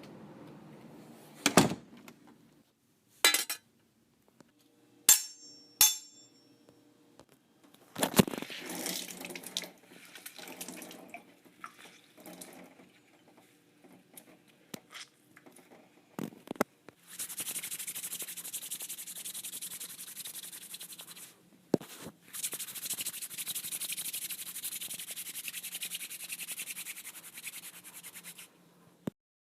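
Several separate knocks and clinks, one ringing briefly, followed by two long stretches of water running from a tap, split by a single sharp knock.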